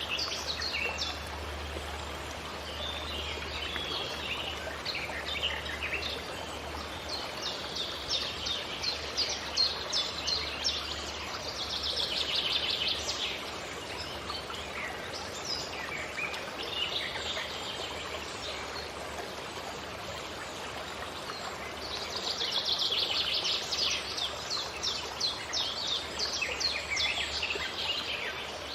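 Forest birdsong: several birds chirping and trilling in bursts, with quick rapid trills now and then, over the steady rush of a stream.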